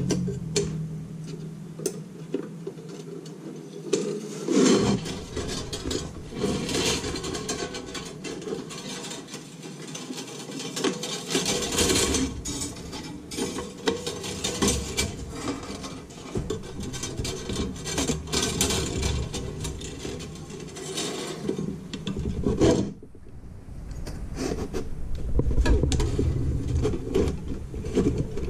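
Nichrome wire being pulled and threaded through the holes of an icemaker's metal ice cube grid, rubbing and scraping against the metal with small clicks and clinks of the grid frame as it is handled.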